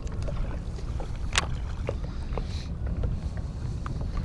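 Steady low wind rumble on the microphone aboard an open fishing boat, with scattered light clicks and taps and one sharper click about a second and a half in.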